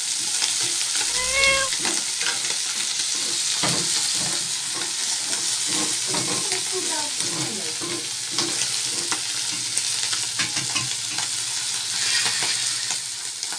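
Fish frying in hot oil in a kadai (wok), a steady sizzle. A short high cry rises and falls about a second in.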